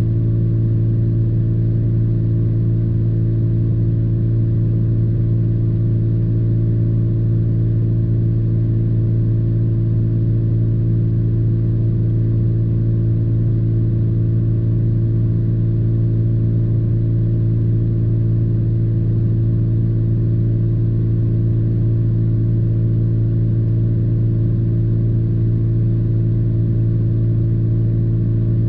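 Truck engine idling steadily, heard from inside the closed cab as an even low hum that does not change.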